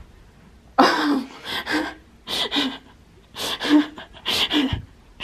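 A person's voice in a run of loud, breathy gasps, about two a second, starting about a second in.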